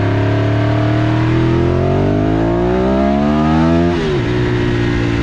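1995 Ducati 748SP's L-twin engine accelerating on the road, its pitch climbing steadily for about four seconds. The pitch then drops suddenly and holds steady.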